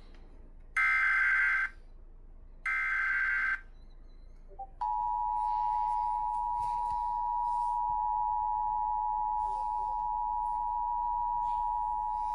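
Emergency Alert System SAME header: two short bursts of warbling digital data tones about a second apart, then the two-tone EAS attention signal held steady for about eight seconds, heralding a tornado warning.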